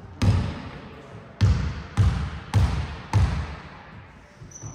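A basketball being dribbled on an indoor court: five bounces, the first alone and then four at an even pace of a little under two a second, each echoing in the hall.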